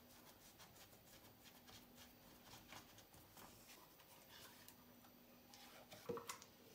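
Near silence: faint clicks and soft scraping as thick pumpkin pie filling is poured from a plastic blender jug into a metal springform pan, over a faint steady hum, with a light knock about six seconds in.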